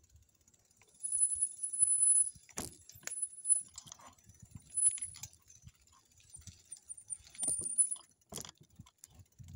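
A bicycle rattling and clinking over rough ground, with a few sharp knocks and brief thin high squeaks.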